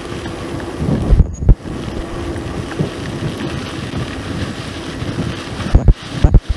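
Wind buffeting the microphone of a camera on a moving mountain bike, over the rumble of tyres rolling on a dirt track. A few sharp knocks about a second in and again near the end.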